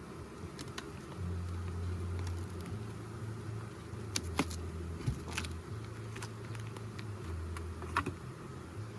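Honeybees buzzing around an open hive, a steady hum that shifts in pitch now and then. A few sharp clicks and knocks break in, the loudest about four and eight seconds in.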